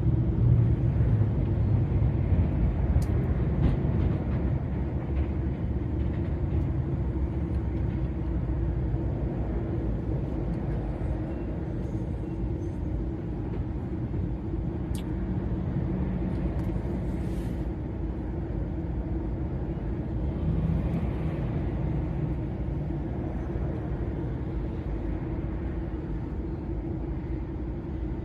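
DAF XF 480 lorry's diesel engine droning steadily with tyre and road rumble while driving at speed, with a few faint clicks.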